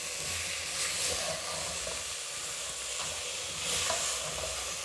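Tomatoes, crushed garlic and ginger sizzling in oil and spice masala in a pressure cooker pot, stirred with a wooden spoon. A steady frying hiss swells louder with the stirring about a second in and again near the end.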